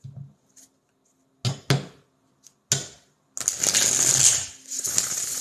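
A deck of tarot cards being shuffled: three sharp taps of the cards about a second and a half and nearly three seconds in, then a riffle shuffle, the cards whirring and rattling for about two seconds near the end.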